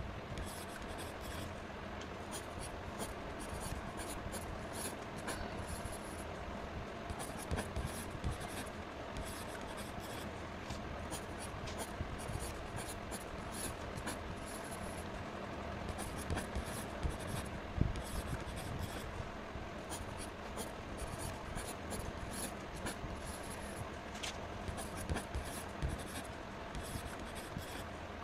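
Graphite pencil scratching and rubbing on sketchbook paper in many short strokes as an outline is drawn.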